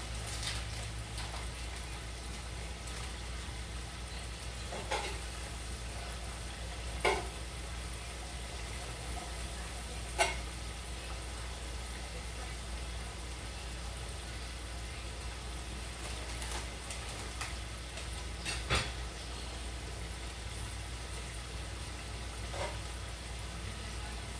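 Butter sizzling steadily on a hot grill as burger buns toast, with a few brief light knocks scattered through.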